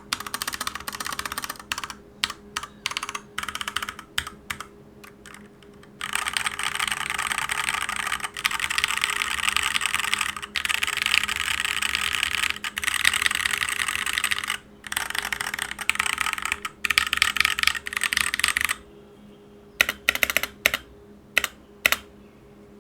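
Typing on a Dierya DK61SE 60% mechanical keyboard with tactile TMKB Brown switches and thin PBT keycaps. It starts with scattered single keystrokes, turns to fast continuous typing about six seconds in, and drops back to a few separate key presses near the end.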